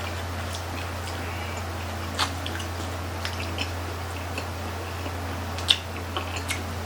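Mouth sounds of eating grilled chicken intestine skewers: scattered short wet smacks and clicks of chewing, the sharpest about two seconds and nearly six seconds in, over a steady low hum.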